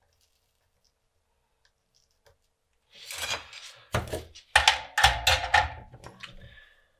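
Handling noise from a small circuit board being picked up and moved about on a workbench mat. It starts about three seconds in with a scrape, followed by a quick run of sharp clattering knocks and thuds.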